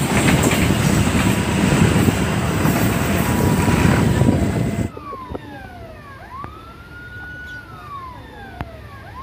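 Loud rushing noise of a train and road traffic passing close by. About five seconds in it gives way to a level-crossing warning siren wailing, its pitch sweeping down and up in repeated cycles.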